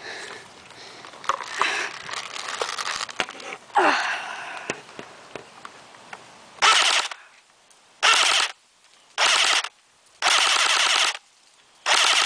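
Airsoft AK-47 rifle firing on full auto in five short bursts, starting about two-thirds of the way in, the fourth burst the longest at about a second. Before them, rustling noise with a few faint clicks.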